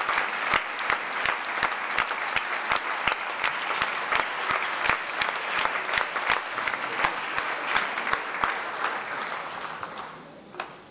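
Audience applauding, a dense crackle of many hands clapping that fades away about ten seconds in.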